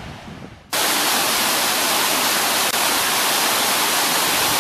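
Waterfall rushing over rock, heard close up as a loud, steady roar of water. It cuts in sharply a little under a second in, after a brief quieter stretch.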